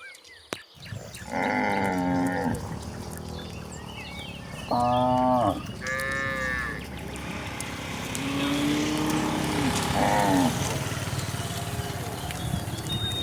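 Cattle mooing: a run of about five calls of differing pitch, some short and some drawn out, the longest and lowest a little past the middle.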